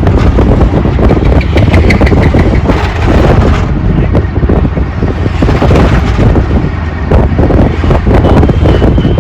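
Auto rickshaw engine running and road noise while riding along, with heavy wind buffeting on the microphone.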